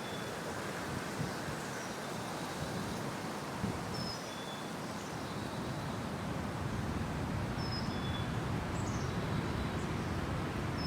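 Outdoor background ambience: a steady low rumble, with a small bird repeating a short, high two-note call about every three to four seconds and a few fainter, higher chirps in between.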